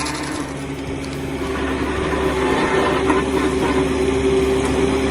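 Engine of a heavy forestry machine running steadily, growing slightly louder over the first couple of seconds.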